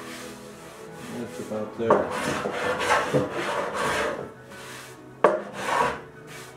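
Rasping strokes of a hand tool worked back and forth over a wooden case side, about one a second, with a sharp click a little after five seconds in.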